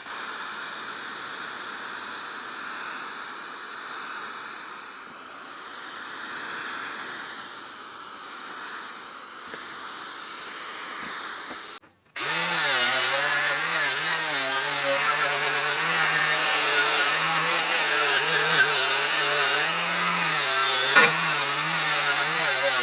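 Aerosol spray paint hissing steadily from a can. After a short break comes a louder angle grinder with a wire cup brush, its motor whining with a wavering pitch as the brush scrubs rust off a steel tube frame, with one sharp knock near the end.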